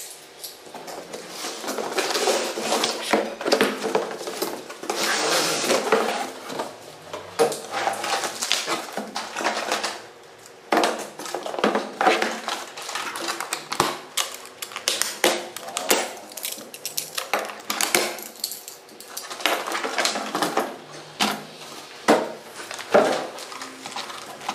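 Cardboard box and plastic packaging handled while an RC truck is unpacked: irregular rustling and scraping with many small knocks and clicks as parts are lifted out and set down.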